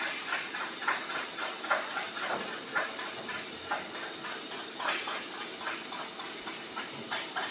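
Irregular metal clicks and knocks, about two or three a second, over a steady background hum, from metal parts being worked and fitted.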